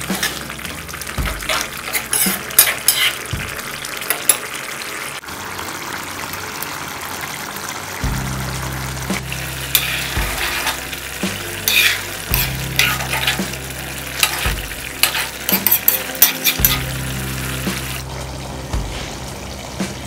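Metal ladle stirring simmering curry in a kadai, scraping and clinking against the pan in quick irregular strokes, over the sizzle of the cooking curry.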